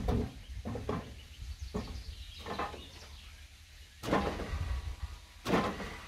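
A heavy wild service tree log being shoved and shifted on a wooden beam on a sawmill bed: a run of dull knocks and scrapes, the loudest about four seconds in and again near the end.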